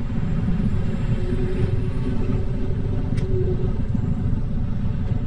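Steady low rumble of wind on the microphone and wheels running over pavement while riding a Segway D40X electric kick scooter, with one brief click about three seconds in.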